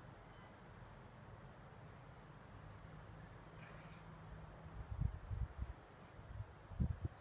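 A faint high-pitched chirp repeating steadily about three times a second, over low background noise. Low rumbling thumps start about two thirds of the way in and are the loudest thing near the end.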